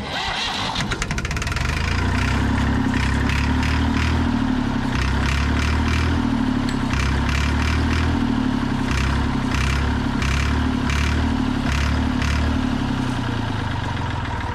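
Massey Ferguson 200 Turf tractor's diesel engine cranking over on the starter motor for about fourteen seconds, with a steady chugging rhythm from compression strokes but not catching. A fuel supply fault is the cause: the tank and pump are plugged up and the pump needs bleeding.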